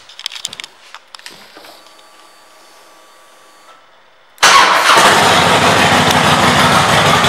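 2006 Harley-Davidson Softail Deluxe's Twin Cam 88B V-twin, fitted with Screaming Eagle pipes, being started. A few clicks and a faint steady whine come first. About four seconds in the engine fires suddenly and runs loud and steady.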